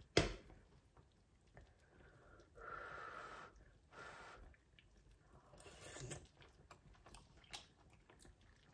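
Soft eating sounds as a spoonful of tteokbokki is tasted: a sharp click near the start, then a few breathy blows or slurps at the mouth and quiet chewing.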